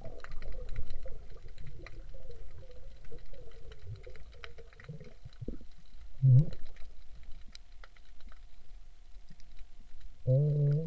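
Shallow seawater sloshing and splashing with many small clicks and taps, as a person wades along the shore foraging for octopus. A short low pitched sound comes about six seconds in and again near the end.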